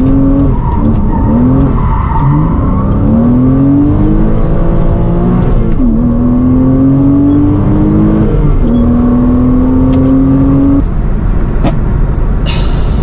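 Car engine accelerating hard through the gears. Its note climbs, drops back at each upshift and climbs again several times, then the revs fall away about eleven seconds in.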